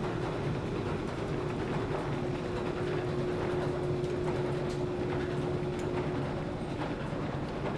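Escalator running: a steady mechanical hum with a pulsing low drone and scattered light clicks. A steady tone over the hum fades out about six and a half seconds in.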